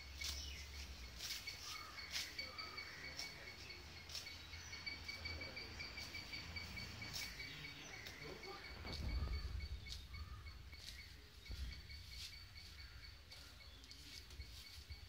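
Cow grazing, tearing off grass in short crisp rips about once a second, over a steady high insect trill.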